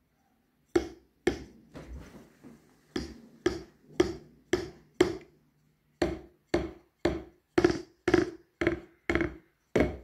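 Wooden drumstick tapping the pads of a Behringer XD80USB electronic drum kit: dull, sharp strikes, a few spaced ones at first, then a steady run of about two a second. The pads are being struck to show a problem the owner has with the kit.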